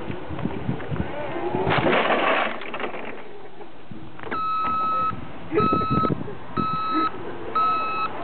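A forklift's backup alarm beeps about once a second from a little past four seconds in, over the forklift's running engine. A rough scraping, crunching noise comes about two seconds in.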